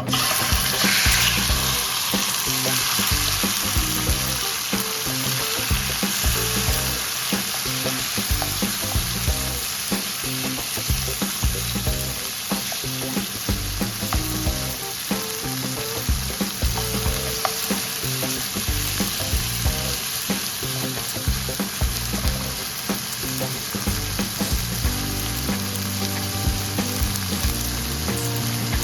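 Food frying in hot oil in a pan, with a steady loud sizzle that is strongest in the first couple of seconds, as if the food has just gone in. Background music with a steady beat runs underneath.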